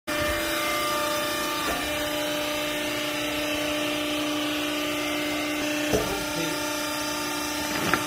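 Vertical hydraulic rag baler's power unit running: a steady hum from the motor and hydraulic pump, with a few short knocks, the loudest about six seconds in and again near the end.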